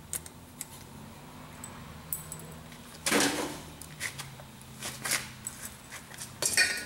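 Small metallic clicks and clinks from a screwdriver working on the metal linkage of a VW Mk4 shifter assembly. A louder clatter comes about three seconds in and a brief rattle near the end, over a low steady hum.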